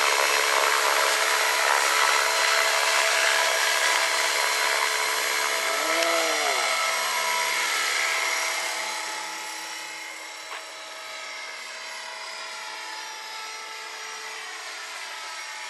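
500-size radio-controlled Airwolf scale model helicopter in flight: a steady high whine of its motor and rotors with several steady tones. It grows fainter from about halfway through as the helicopter climbs away.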